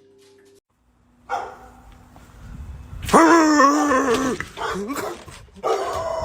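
A dog vocalizing: a short sound about a second in, then a long wavering call of over a second, and another shorter call near the end.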